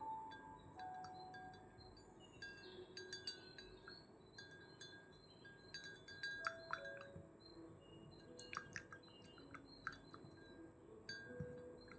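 Wind chimes tinkling softly in scattered, irregular strikes, with a few slow, gentle sustained notes beneath.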